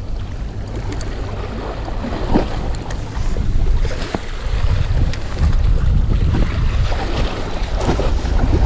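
Wind rumbling on the microphone over sea water washing against the shore, with a few light clicks and taps.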